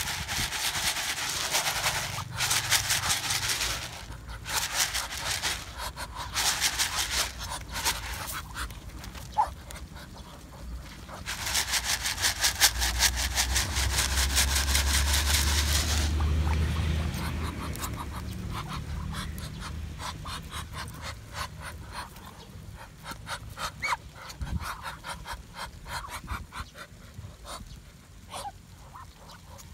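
Flock of Muscovy ducks pecking grain off dirt ground: a dense, rapid clatter of many bills, heaviest near the start and again around the middle, thinning to separate pecks later. A low rumble sits under the middle stretch.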